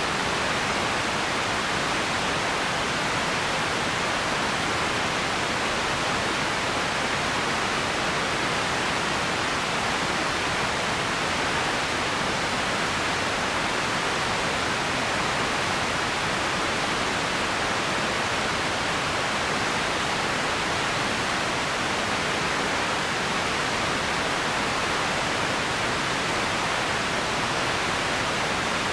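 Steady, even hiss of an empty ambience noise bed, strongest in the upper middle range, with no separate events and no change in level.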